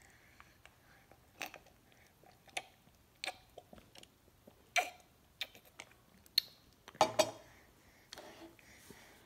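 Baby's mouth sounds while sipping water from a plastic cup and chewing soft pancake: scattered short wet clicks and lip smacks, with a louder cluster about seven seconds in.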